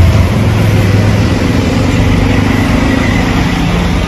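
Road traffic: a motor vehicle engine running with a steady low hum over general street noise, its pitch shifting lower near the end.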